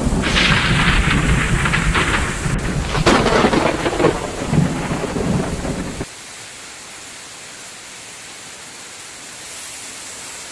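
Heavy rain pouring down, with a strong low rumble under it, that cuts off suddenly about six seconds in, leaving a steady, softer rain hiss.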